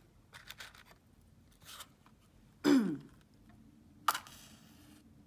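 A matchbox handled with small clicks, a short falling vocal sound, then a wooden match struck on the box about four seconds in, flaring with a brief hiss.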